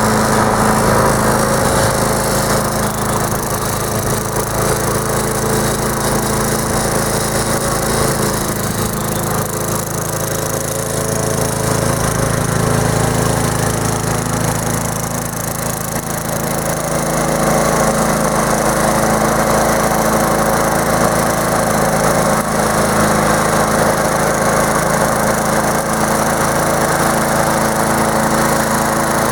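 Gasoline lawn mower engine running steadily on a homemade radio-controlled mower, dipping slightly in level about halfway through, then back up.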